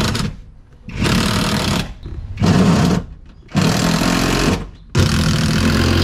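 Handheld cordless power driver run in short bursts, driving in the screws that bolt a bucket seat to its mounting. A run is ending just after the start, then four more of about a second each follow with short pauses between.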